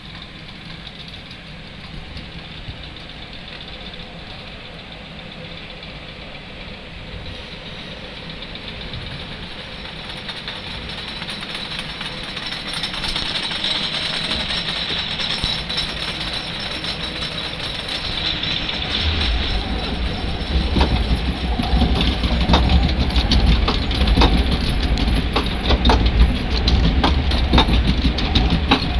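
Log flume boat riding up the lift-hill conveyor: a steady rush of water at first, then, about two-thirds of the way in, a heavy low rumble with a rapid rattling clatter from the conveyor belt. The sound grows louder as the boat climbs.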